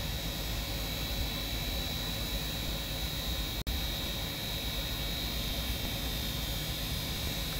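Steady background noise, a low rumble and hiss with a faint high-pitched whine, that cuts out for an instant about three and a half seconds in.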